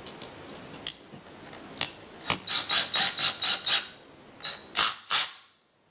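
A drill-driver drives a terminal screw down on an electrical receptacle. It goes in short spurts: a few single clicks, then a quick run of ratcheting clicks, about six a second, and two louder spurts before the sound cuts off suddenly near the end.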